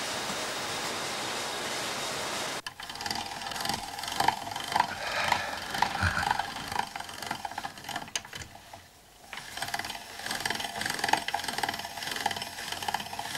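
Steady machine noise of a pasta factory's packaging line, cut off sharply after about two and a half seconds. Then a hand-cranked pasta machine cutting spaghetti, its gears and rollers clicking and rattling irregularly as it is turned, with a short pause about two-thirds through before cranking resumes.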